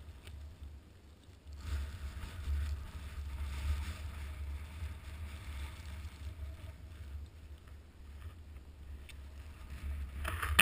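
Wind buffeting the microphone as a steady low rumble, with a rushing hiss that swells from about a second and a half in and again near the end.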